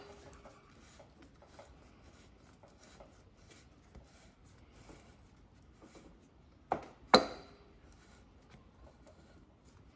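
Faint rubbing and small ticks of a steering-stem top nut being turned down its threads by hand, with two sharp knocks about half a second apart roughly two-thirds of the way through.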